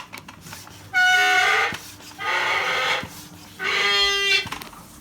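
Hand pump being worked to pump air into a heating system's expansion vessel, three strokes, each giving a loud squealing, whistling tone as the air is pushed through.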